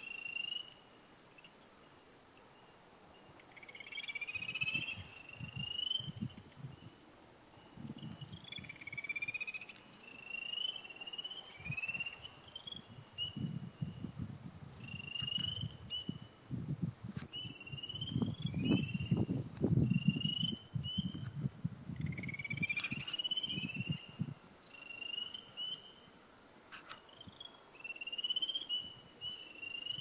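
A chorus of spring peepers: many short, high, rising peeps, overlapping and repeating. From about four seconds in, irregular bursts of low rumble come and go, loudest around the middle.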